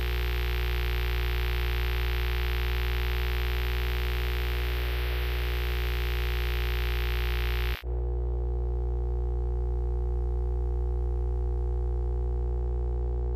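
Steady electronic drone of held low tones under a layer of static-like hiss. About eight seconds in the sound drops out for a moment and the hiss stops, leaving the drone alone.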